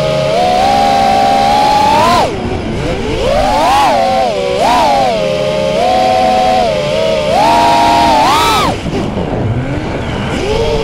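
FPV model aircraft's motor and propeller whining. The pitch climbs and drops with the throttle, and falls away sharply about two seconds in and again near the end as the throttle is chopped.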